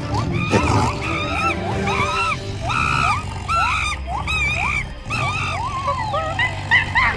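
Monkeys shrieking, a run of short high calls about two a second, each rising and then falling in pitch, over a steady low background.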